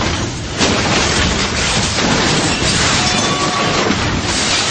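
A heavy truck crashing and overturning: loud, continuous crashing and scraping noise, with a sudden loud impact about half a second in.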